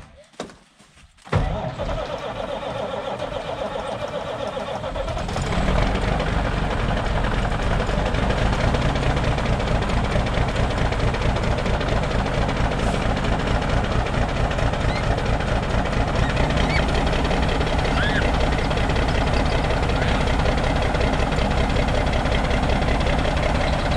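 Cummins Big Cam inline-six diesel of a 1991 International 9670 Eagle semi cold-starting. A few clicks, then about a second in the starter cranks the engine. It catches about five seconds in and settles into a steady idle.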